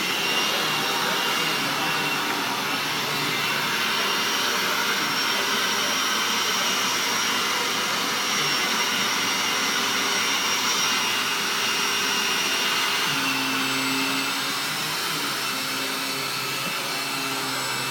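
Vacuum cleaner running continuously, a steady motor hum and airflow rush, with a slight dip in level and pitch shift about thirteen seconds in.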